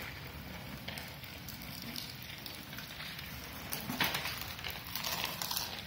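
Downpour of rain falling, a steady hiss made of many small ticks, with a brief louder burst of noise about four seconds in.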